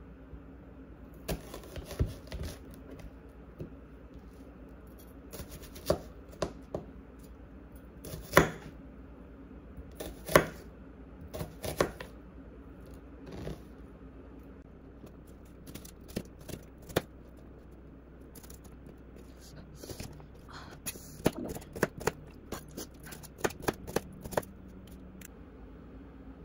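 Irregular clicks, taps and knocks of small hard objects being handled, some in quick clusters, over a low steady hum.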